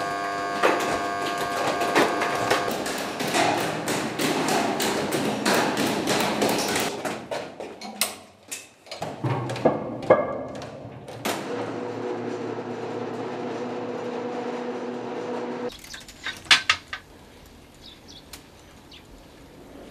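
Rapid knocking and clatter of boots and gear on a concrete bunker floor. This is followed by a steady droning rumble while a hand-pushed munitions cart rolls along its tunnel track; the drone stops abruptly about three-quarters of the way through.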